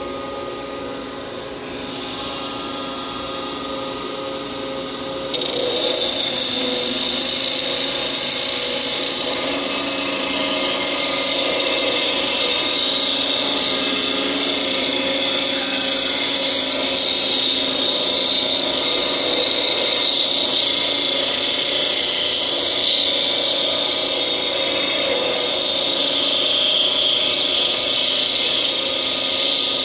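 Queen City 12-inch pedestal grinder with a 36-grit stone, its motor humming steadily. About five seconds in, a length of rebar is pressed hard into the wheel, and a loud, steady, gritty grinding takes over.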